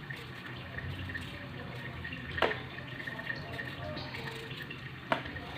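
Kitchen knife paring the skin off a raw potato by hand, with two sharp clicks about two and a half seconds apart, over a steady low hum and the faint bubbling of a covered pot of chicken soup boiling.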